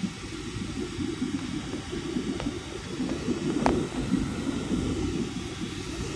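Steady low rumble of engine and airflow noise inside a jet airliner's cabin during the climb after takeoff. Two faint clicks come in the middle.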